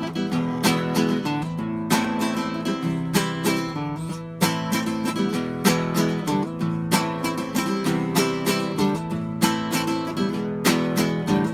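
Nylon-string classical guitar strummed in a steady rhythm, the chords ringing between strokes.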